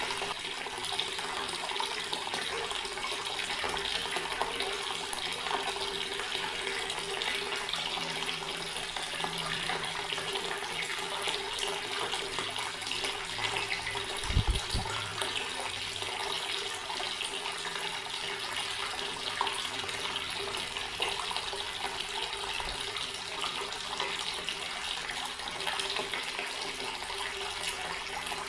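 Water running steadily from an outdoor tap and splashing below, an even continuous rush. About halfway through there is a brief low thump.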